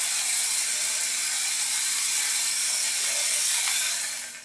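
Tiny 1:64-scale remote-control truck driving on the floor, its small electric motor and gears giving a steady high, hissy whir that cuts off near the end.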